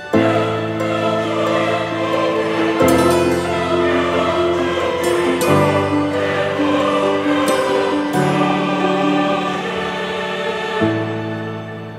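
Background music: a swell of choir-like wordless voices over sustained chords, coming in abruptly and changing chord every few seconds.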